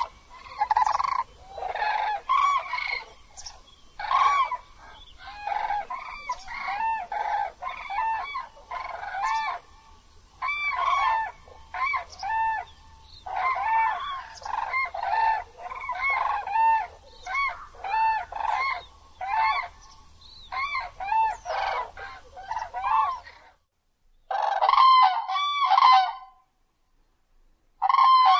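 Grey crowned cranes giving repeated honking calls, short arched notes in quick clusters one after another. About 23 seconds in the calls stop abruptly, then two more short bursts of honks follow.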